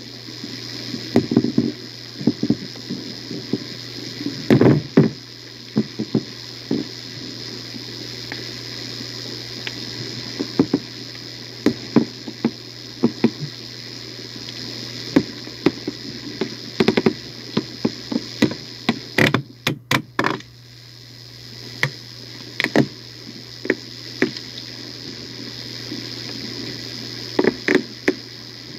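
Playback of a voice recorder lowered about 25 to 30 m down a deep borehole: a steady hum and hiss with irregular knocks and clicks, some in quick clusters. The uploader presents these as sounds coming from an underground tunnel.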